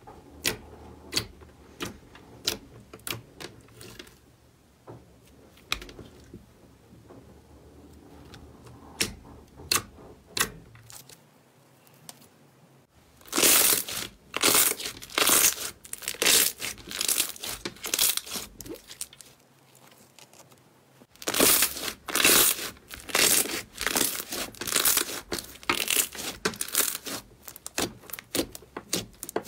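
Hands poking and pressing slime. For the first half there are separate sharp clicks and pops as fingertips press into clear blue slime. About halfway through it turns to dense, loud crackling and crinkling as purple slime is squeezed and pressed flat, with a short quieter gap between two runs.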